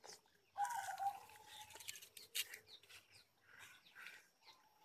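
Green sugarcane being chewed and peeled: scattered faint crunching, tearing strokes. A short, high call sounds about half a second in.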